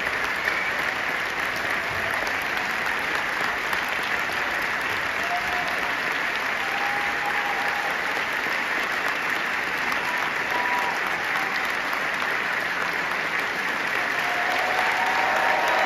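Large theatre audience applauding steadily at an opera curtain call, with a few brief held calls from the crowd rising over the clapping. The applause swells a little near the end.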